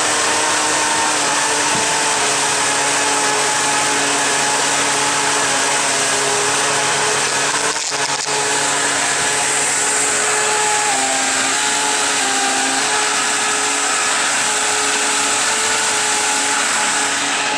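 Electric jet-surfboard drive unit (brushless motor spinning a water-jet pump) running at high rpm, a steady motor whine over the rush and churn of water frothing in the test tub. The pitch shifts in small steps a few times about two-thirds of the way through.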